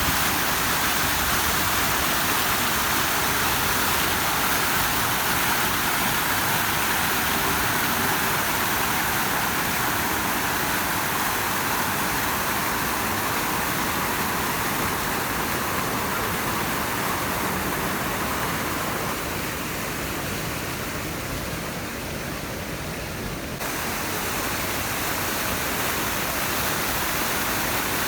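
Steady rush of flowing water. About two-thirds of the way through, the hiss thins for a few seconds, then comes back abruptly.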